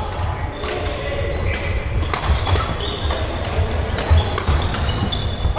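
Badminton rally: rackets sharply striking the shuttlecock again and again, with short high squeaks of shoes on the court floor, over a steady low rumble in a large sports hall.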